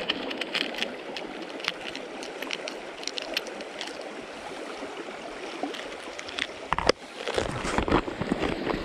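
Small stream running over stones, with light clicks of metal spinners and hooks rattling in a plastic lure box as a lure is picked out and changed. A sharper click comes about seven seconds in, after which the water noise grows louder and fuller.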